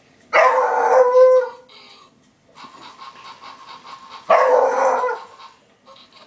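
A dog barking twice, each bark drawn out to about a second and the two about four seconds apart. Between them a quieter, rapid, even pulsing runs for about a second and a half.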